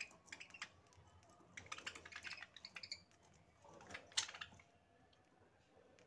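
Budgerigars pecking and cracking seed offered by hand, faint quick clicks in clusters, about a second and a half in and again around four seconds in.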